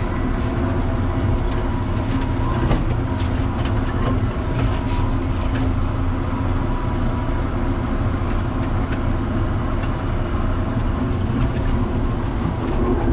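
John Deere 7600 tractor's six-cylinder diesel engine running steadily under load while pulling a mower, heard from inside the cab, with scattered light clicks and rattles.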